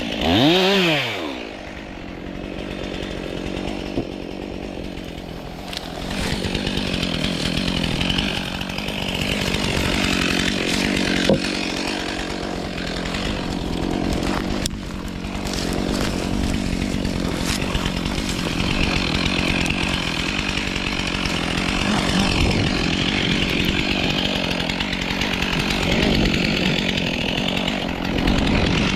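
Stihl MS 362 C two-stroke chainsaw revved up and let back down about half a second in, then running steadily at working speed while cutting birch wood.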